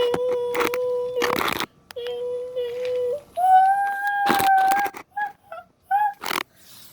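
A person's voice making train-whistle hoots: two long level 'whooo' tones, then a higher held one, then a few short hoots near the end, with some brief breathy or knocking noises in between.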